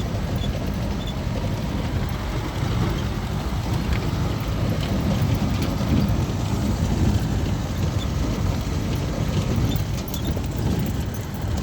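Vehicle travelling over a rough dirt road: a steady low rumble with scattered small knocks and rattles.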